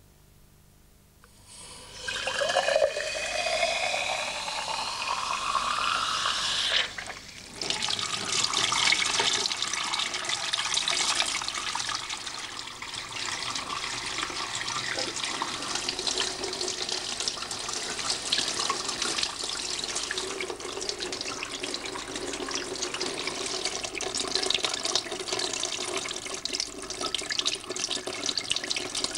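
Water running from a kitchen tap into a glass, starting about two seconds in with a tone that rises in pitch as the glass fills. After a short break near seven seconds, steady splashing tap water runs into and over the glass.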